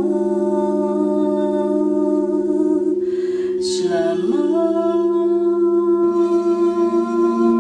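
Crystal singing bowls ringing in steady, slowly pulsing tones while a woman chants a mantra in long held notes over them; about three and a half seconds in she breathes and starts a new sung phrase with a gliding pitch.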